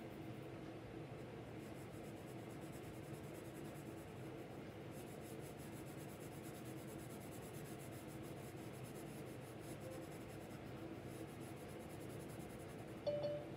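Wooden graphite pencil scratching across drawing paper in repeated shading strokes, over a faint steady hum. A brief, sharper sound with a short tone stands out near the end.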